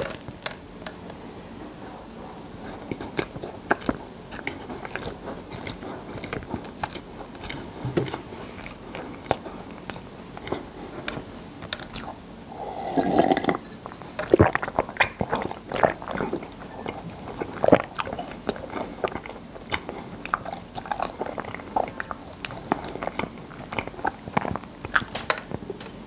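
Close-miked chewing and biting of sesame-covered kkulppang (glazed honey bread), with many small sticky crunches and clicks. The chewing gets denser and louder about halfway through.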